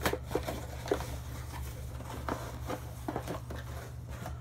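Plastic Blu-ray and DVD cases being handled and set down: scattered light clicks and taps with small rustles, over a steady low hum.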